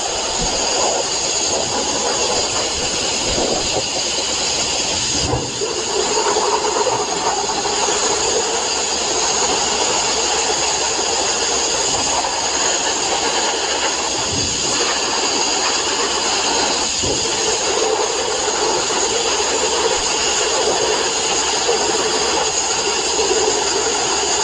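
Sandblaster running: a loud, steady hiss of compressed air and abrasive from the blast nozzle, with a brief dip about five seconds in.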